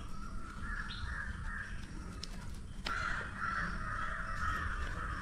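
Crows cawing in a run of harsh calls. The calls are faint at first and become loud and continuous from about three seconds in.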